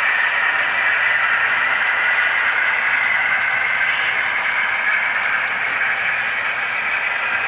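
HO scale model train running on the layout: a steady mechanical hiss from its motor, gearing and wheels on the rails, with a faint low hum underneath.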